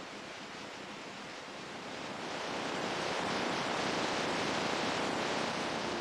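Ocean surf washing, swelling louder about two seconds in and staying up.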